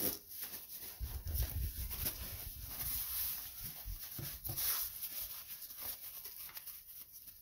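Paper towel rustling and rubbing against the sticky cut face of a halved jackfruit as it is wiped, with small handling knocks and bumps on a wooden cutting board.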